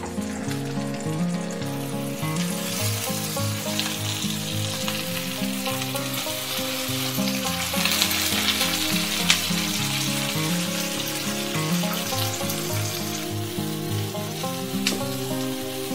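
Stuffed red peppers sizzling as they fry in hot oil in a nonstick frying pan. The sizzle swells about halfway through, with a sharp click there and another near the end.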